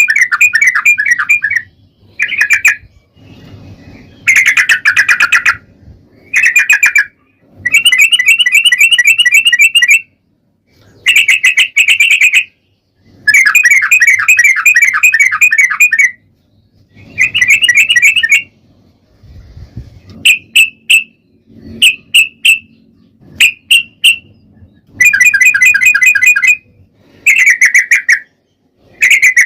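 Yellow-vented bulbul singing its rapid, bubbly chattering song in repeated phrases of one to three seconds with short pauses. Near the middle come a few short, single notes.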